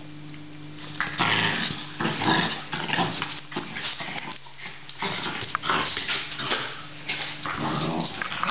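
Australian terriers play-fighting: a rapid, irregular run of growls and snarls starting about a second in.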